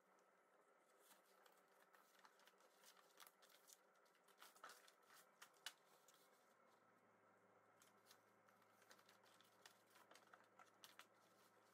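Faint crinkling and rustling of large folded paper sheets being handled and opened out, with scattered soft crackles, one a little louder about halfway through.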